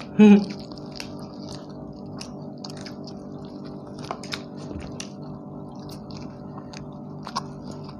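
People chewing and biting into tandoori chicken: small wet mouth clicks and smacks scattered throughout, over a steady low hum.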